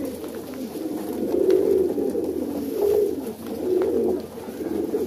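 Many domestic highflyer pigeons cooing at once, their low warbling coos overlapping in a continuous chorus.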